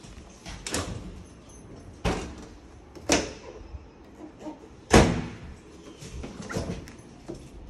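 Kitchen appliance doors, among them an over-the-range microwave's and a refrigerator's, being opened and shut in turn: a series of five clunks and bangs, the loudest a slam about five seconds in.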